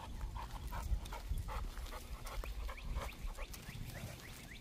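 Young XL American Bully dog panting in quick, regular breaths while on a walk, with a low rumble underneath.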